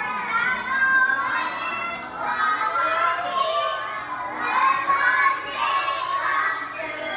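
A group of young children's high voices singing together without accompaniment, overlapping and ragged, with a few held notes.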